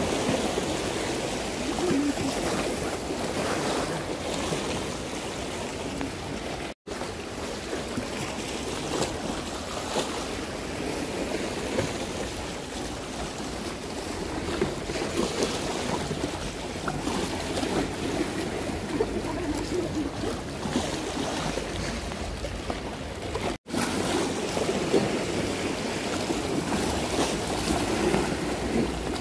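Sea water washing and lapping in the shallows, with wind buffeting the microphone. The sound cuts out for an instant twice.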